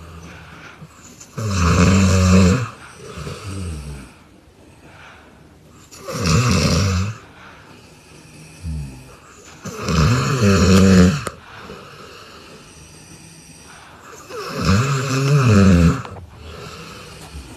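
A sleeping adult snoring loudly: four long snores about four seconds apart, with softer breathing sounds between them.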